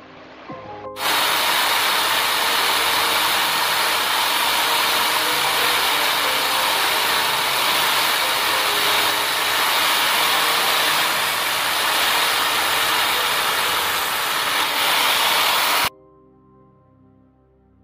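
Electric drill in a drill-press stand running and cutting into a metal part: a loud, steady, hissing noise that starts about a second in and cuts off abruptly near the end. Background music plays underneath.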